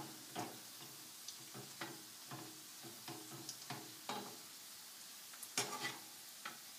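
Sliced Chinese sausage sizzling faintly in a frying pan while a slotted spatula stirs it, tapping and scraping the pan about twice a second, with a louder clatter of several knocks near the end.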